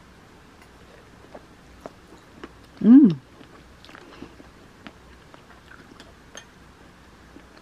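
A short hummed 'mmm' about three seconds in, rising then falling in pitch, from someone tasting food, among quiet chewing and light clicks of a metal fork against a ceramic bowl.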